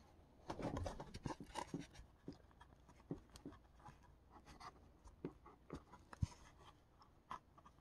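Faint scratching and small ticks of fingers working at the hinge slot of a foam RC airplane control surface, fitting a small plastic hinge into it. A cluster of rustling in the first two seconds, then scattered ticks, with one sharper tick a little after six seconds.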